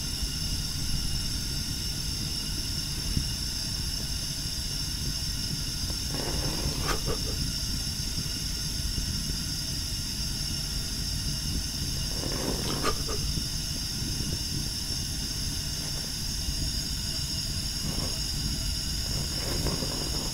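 Portable butane gas stove burner hissing steadily, with a few faint crackles about six and twelve seconds in.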